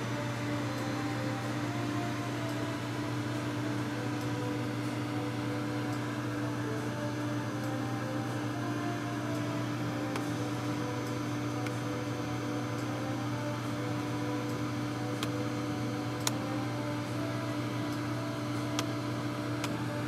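Vacuum cleaner running steadily, its motor humming under a rush of air through the nozzle. A few faint clicks come in the second half.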